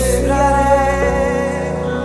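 Slow worship song: a sung note held over sustained chords, with the low bass dropping out about a second in.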